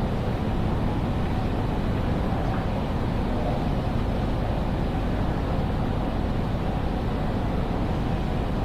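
Steady, low rumbling ambience of a large railway station hall, with no distinct events standing out.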